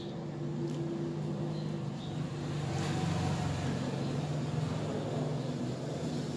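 A motor vehicle engine running steadily in the background, swelling to its loudest about three seconds in and then easing off.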